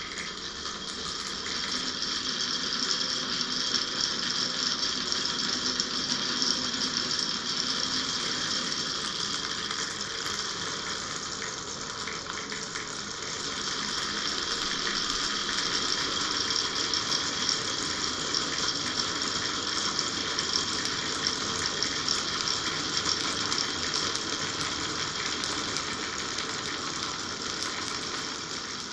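Many marbles rolling and clattering down a marble run's tracks: a continuous rattling rush of dense tiny clicks that swells and eases slowly.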